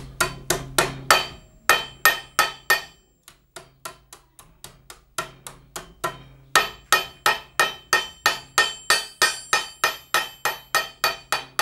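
Hand hammer striking a copper sheet over the edge of a metal stake, bending its edge. Quick, regular ringing blows at about three a second, softer and sparser for a few seconds in the middle, then a steady run of hard blows again.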